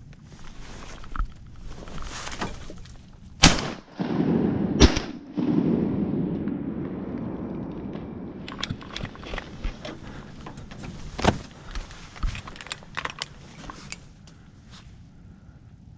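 Two shotgun shots about a second and a half apart, each leaving a rumbling echo that dies away over a few seconds. Light clicks and knocks follow.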